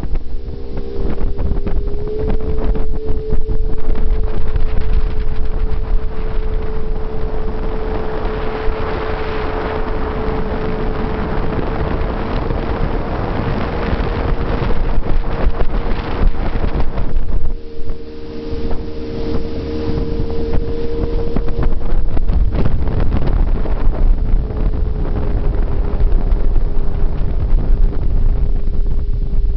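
Jet boat under way, its engine and water jet running at a steady pitch, with wind buffeting the microphone and water rushing past the hull. The engine note wavers briefly near the start and again about two-thirds of the way through.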